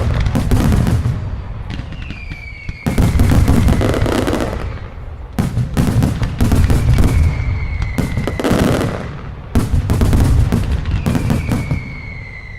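Fireworks going off in rapid volleys of loud bangs and crackle, a fresh volley every three seconds or so. A high whistle glides slightly down between some of the volleys.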